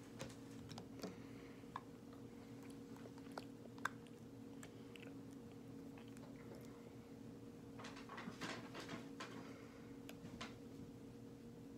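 Faint clicks and scratchy rustles of a makeup brush and powder compact being handled, with a denser patch of scratching about eight seconds in, over a steady low hum.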